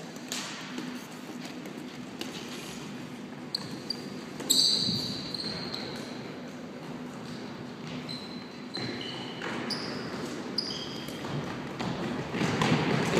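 Floorball play on a sports-hall floor: scattered clacks of plastic sticks and the plastic ball hitting the court, with short high squeaks of players' shoes, the loudest about four and a half seconds in, all echoing in the large hall.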